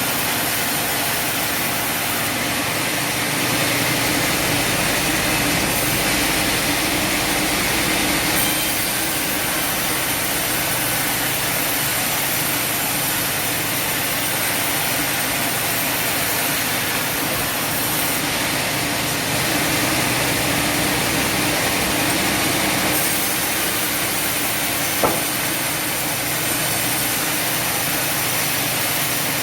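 Sawmill machinery running steadily, an engine-driven saw with a constant drone, growing a little louder and hissier over two stretches, once early and once past the middle, with a single sharp knock near the end.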